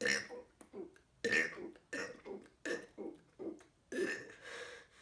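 A man burping over and over in quick succession: about eight short burps roughly half a second apart, then a longer burp near the end.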